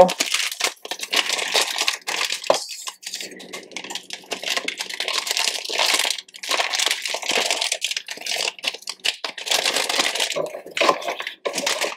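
Plastic packaging crinkling and rustling as it is handled, a continuous crackly rustle with many small clicks.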